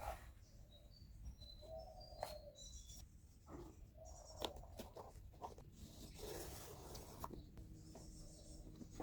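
Faint scattered clicks and taps, with a few short high chirps in the first three seconds and brief scraping noises.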